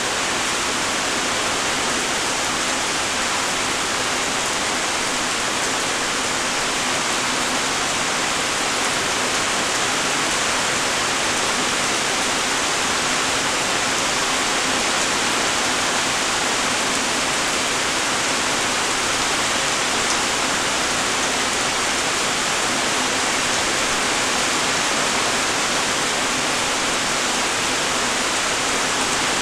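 Light rain falling steadily, an even hiss of many small raindrops.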